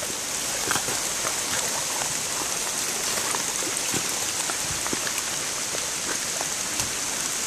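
Steady rush of a creek in flood and of water running down a plastic-lined wooden flume, an even hiss with scattered faint ticks.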